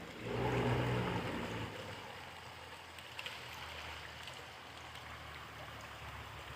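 Faint, steady rush of a stream running below the path. A brief low rumble comes in the first second and a half, and a couple of light clicks follow about three seconds in.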